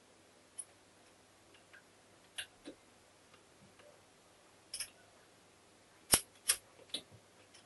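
Scattered sharp metal clicks and light knocks as the gears and shafts of a Honda MT5 five-speed gearbox are handled and fitted into the crankcase half, with three louder clicks close together near the end.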